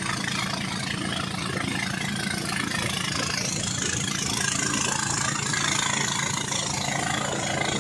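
An engine running steadily at an even speed, with a low hum under a constant rushing noise.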